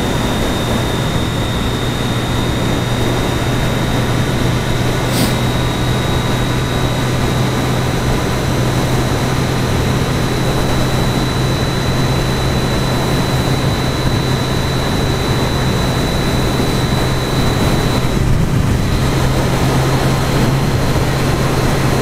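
Triumph Daytona 675R's three-cylinder engine running at a steady pitch under wind rush on a helmet-mounted camera. There is a single brief click about five seconds in.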